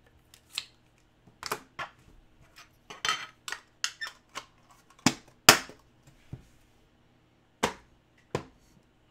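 Trading cards and their plastic holders being handled and set down on a table: about a dozen sharp clicks and taps at uneven intervals, the loudest about halfway through.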